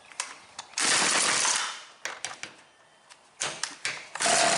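Husqvarna 325P4 pole saw's two-stroke engine being pull-started and firing only in short, irregular bursts with scattered pops and clicks between them. The engine is missing badly because the spark plug wire has been rubbed through by the flywheel.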